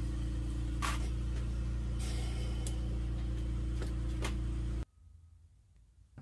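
Lampworking torch burning with a steady hiss over a steady low hum, with a few light clicks of glass and tools, cutting off suddenly about three-quarters of the way through.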